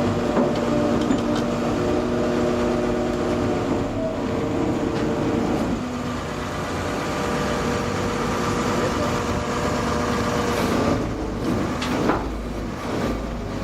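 Heavy truck engine running steadily, its pitch shifting a few times, with a rising sweep and a burst of noise about eleven seconds in.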